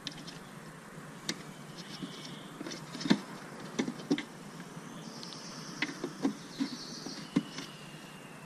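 Sharp plastic clicks and knocks as the bulb sockets of a Daewoo Nubira's rear tail light assembly are twisted and handled. There are about eight irregular clicks, the loudest about three seconds in.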